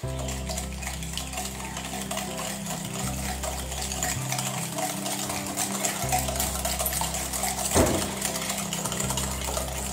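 Wire whisk beating eggy cake batter rapidly in a glass bowl: a continuous fast scraping rattle, with one sharper knock about eight seconds in. Background music with low bass notes runs underneath.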